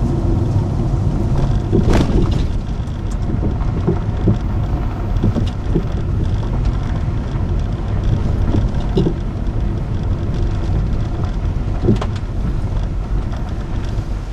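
Car heard from inside the cabin as it drives over a rough, patched road: a steady low rumble of tyres and engine, with sharp knocks from bumps about two seconds in and again near the end.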